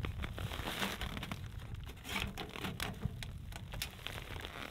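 Nylon tent fabric crinkling and rustling in many short, irregular strokes as a person presses against it and works at the stovepipe on the roof, over a low wind rumble.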